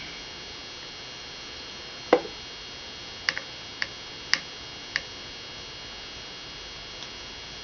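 A screwdriver knocking and clicking against the board: one dull knock, then four sharp clicks about half a second apart, over a steady hiss.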